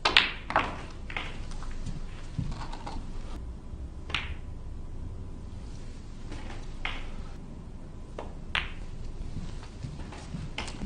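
Snooker balls clicking as shots are played: the cue tip striking the cue ball and the cue ball clacking into the object balls. There are about eight sharp clicks, three in quick succession at the start and then single ones every few seconds, over a quiet hum.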